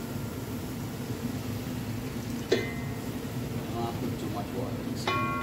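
A single metallic clink of cookware, such as a utensil striking the curry pot, about two and a half seconds in; it rings briefly. Under it runs a steady low hum.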